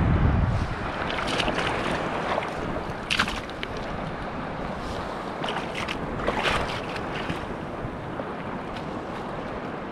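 Steady wind and surf noise at a seaweed-covered shoreline, with wind buffeting the microphone. A low rumble at the very start comes from a hand right at the camera, and a few sharp crackles and rustles come from movement on the wet seaweed, the clearest about three seconds in and again near six and a half.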